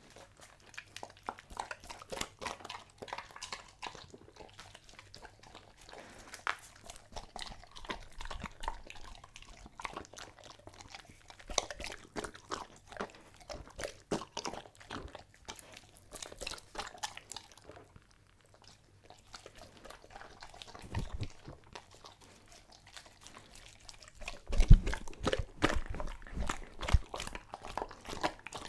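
German Shepherd eating a raw meal of meat and organs off a wooden board, close to the microphone: irregular wet chewing, smacking and crunching. There is a short pause about 18 s in, and the chomping is louder and heavier from about 24 s.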